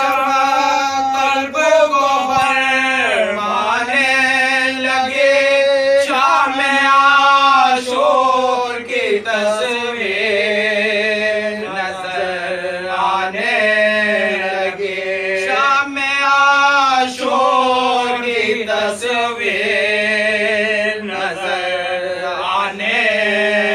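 Male voices chanting an unaccompanied Urdu Muharram lament, drawing out long notes with a wavering vibrato and gliding between pitches.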